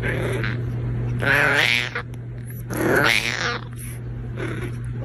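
A domestic cat meowing: two drawn-out meows that rise and fall, about a second and a half apart, with a couple of shorter faint calls, over a steady low hum.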